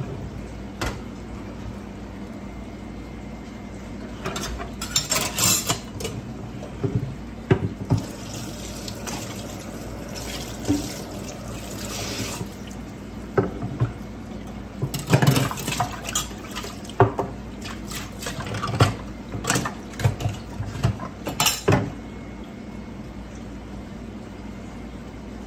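Kitchen handling sounds at a stovetop: a bowl, a wooden cutting board and utensils knocking and scraping in irregular clatters, some of them sharp, over a steady low hum. The clatters start about four seconds in and stop a few seconds before the end.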